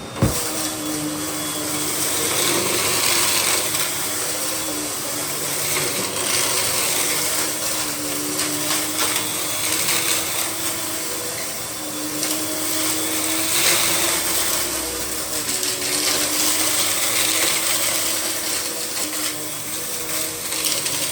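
Russell Hobbs Athena Pet vacuum cleaner running: a steady motor whine over a rush of air, its pitch drifting slightly as it works. A sharp knock comes just after the start.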